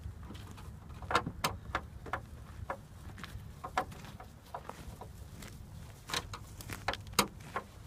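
Irregular clicks, taps and knocks of hand tools and hands working on a CRT television's plastic casing during disassembly, over a steady low hum.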